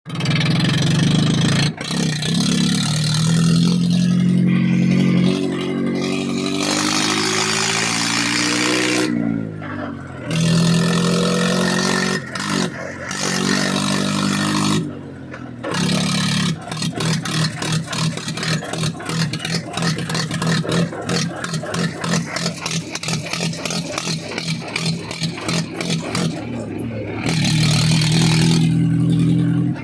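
Mahindra tractor's diesel engine running without a silencer (muffler), loud and revved up and down repeatedly, with a few abrupt breaks. Through the middle stretch it gives a rapid, even exhaust pulsing.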